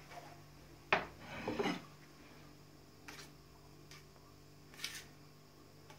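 Table knife spreading and scraping whipped cream over a cake. A sharp knock comes about a second in, then a brief rough scrape, and a couple of lighter scrapes follow later.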